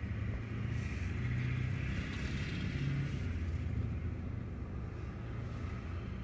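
Diesel freight locomotives approaching in the distance, a steady low engine drone and rumble.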